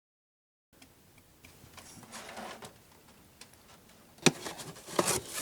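Handling and opening of a cardboard box: after a brief dead silence, faint rustling and scraping, then from about four seconds in a quick run of sharp taps and knocks as the box is worked open.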